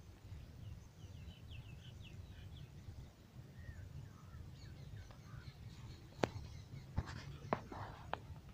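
Faint bird chirps in the background: a quick run of short, falling chirps in the first few seconds, then a few lower ones. Over a low rumble, four sharp clicks come in the second half and are the loudest sounds.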